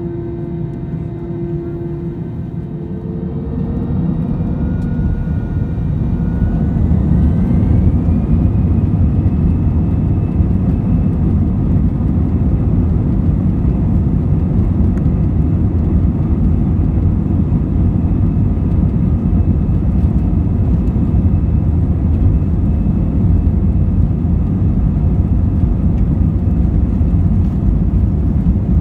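Airbus A320-200 jet engines heard from inside the cabin, spooling up to high thrust. A rising whine over a few seconds about three seconds in settles into a loud, steady roar.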